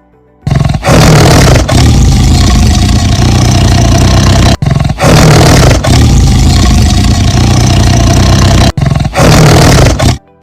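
Tiger roaring, a recorded sound effect: loud, rough roars in three long runs, broken by short pauses, the last one shorter.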